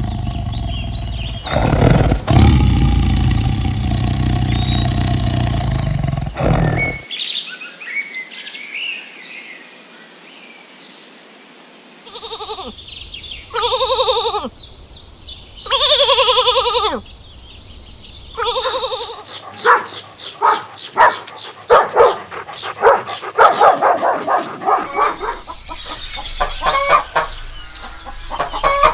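A run of farm animal sounds. A loud rushing noise for the first several seconds, then four drawn-out bleats in the middle, then a long run of quick, short calls.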